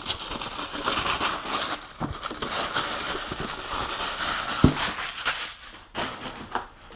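Packaging being handled and rummaged through: continuous crinkling and rustling, with a knock about two seconds in and a sharper one near five seconds.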